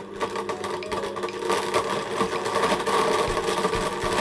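Countertop blender motor running at speed, crushing ice cubes into a chocolate milkshake, with the ice clattering and rattling in the glass jar.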